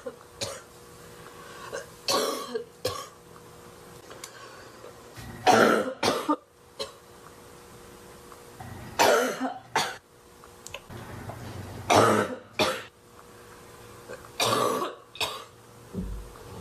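A woman's barking cough fit: loud, harsh coughs coming in twos and threes every few seconds.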